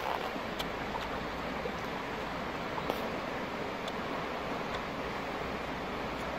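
Shallow stream rushing over rocks: a steady wash of water, with a few faint clicks on top.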